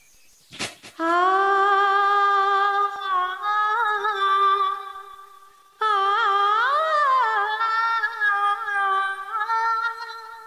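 A woman's solo voice singing long held notes without words, unaccompanied, in two phrases; the second phrase has a quick ornamented rise and fall in pitch before settling on a steady note. A short click comes just before the first note.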